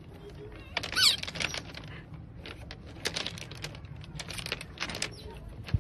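Otter handling a stone while lying on pebbles: stones clicking and clacking in quick, irregular taps. A short high squeak comes about a second in, and a sharper knock comes near the end.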